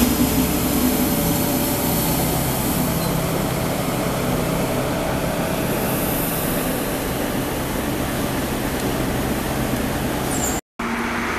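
Steady hum of a running vehicle engine over a rumbling noise bed, cut off briefly about ten and a half seconds in.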